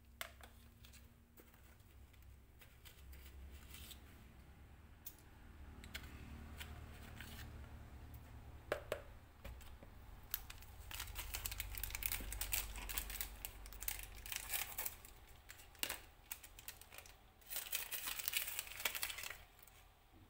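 A plastic seasoning packet crinkling and tearing, with a few sharp clicks and taps. Two longer bursts of crinkling come in the second half, as seasoning is added to the vegetables in the wok.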